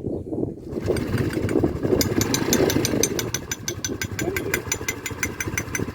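Small motorcycle engine running at idle with a fast, even metallic knocking, about six knocks a second, that sets in about two seconds in. The knock is the engine's 'batendo' that a bystander blames on the connecting rod (biela).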